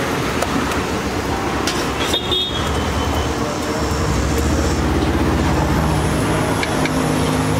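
Street traffic with a vehicle engine running steadily close by and a short horn toot about two seconds in. A metal spatula clicks and scrapes now and then on an iron griddle.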